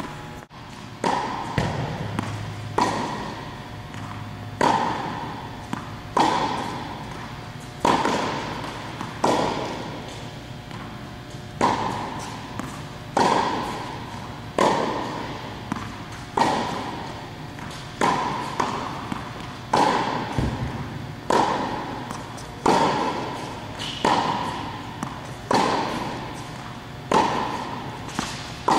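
Tennis balls struck by rackets in a steady rally, a sharp pop about every second and a half, each with a short echoing tail.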